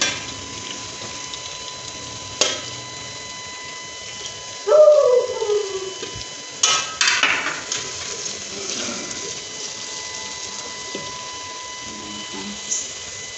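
A steel plate and spatula clacking and scraping on an aluminium pot as chopped onions are tipped into hot oil, with a faint frying hiss underneath. About five seconds in, a short falling whine-like call, lasting about a second, is the loudest sound.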